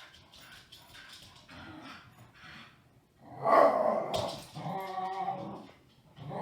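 A dog vocalizing in two loud stretches, about three and a half and five seconds in, after a faint start.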